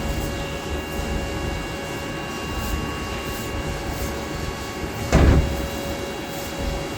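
CNC lathe running steadily, with a constant hum and a few steady whining tones. A loud, short rush of sound comes about five seconds in.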